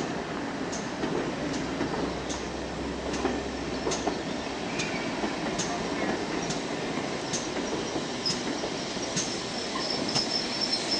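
Passenger coaches rolling slowly along the platform, their wheels clicking over the rail joints a little under once a second over a steady rumble, with a faint high wheel squeal in the last few seconds.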